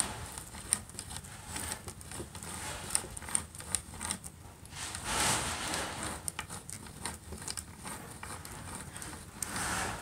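Miller Falls two-speed hand drill being cranked to bore into a wooden plank: irregular light clicks and crackles from the gears and the bit cutting wood. A rushing noise swells up about halfway through and again near the end.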